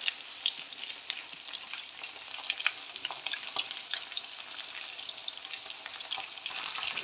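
Chicken pieces frying in hot oil in a kadhai over a medium gas flame: a steady sizzle with many scattered crackles and pops.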